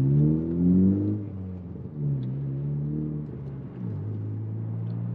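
A 2020 Honda Civic Si's turbocharged four-cylinder, fitted with an RV6 R365 big-turbo kit, heard from inside the cabin as the car pulls away through the gears of its manual gearbox. The revs rise, there is a short lull for a shift about a second and a half in, another shift near the end, and then the engine holds a steady, lower drone.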